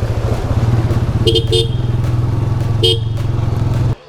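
Motorcycle engine running steadily under the rider, with a horn tooting three short times: two quick toots about a second in and one more near the end. The sound cuts out briefly just at the end.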